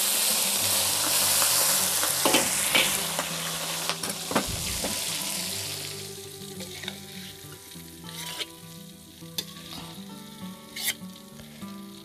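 Chillies, garlic, shallots and tomato frying in hot oil in an aluminium wok, sizzling hard from the start and slowly dying down over about six seconds. A few sharp clicks and knocks come through the sizzle and after it.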